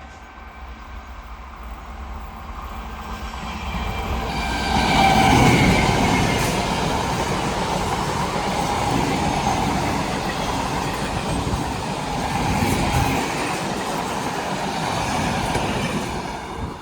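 Indian train running through a sharp curve. It grows louder over the first five seconds, then passes steadily with its wheels running on the rails, and cuts off suddenly at the end.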